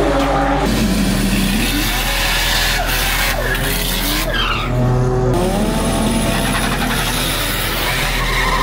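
Drag-racing car engines running hard, their pitch climbing and then dropping several times as they rev and change gear, over a constant loud rushing noise.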